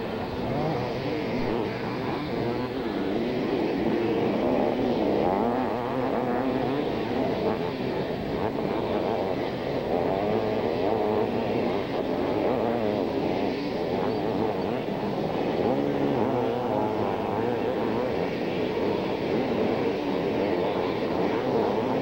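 Several 500cc two-stroke motocross bikes racing, their engines revving up and down and overlapping in a continuous wavering drone.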